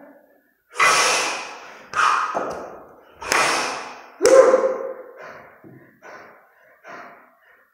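A man's heavy, forceful breathing under exertion while lifting two 32 kg kettlebells in the long cycle. Four sharp exhalations and gasps come about a second apart, the fourth a voiced grunt about four seconds in, then quieter, shorter breaths.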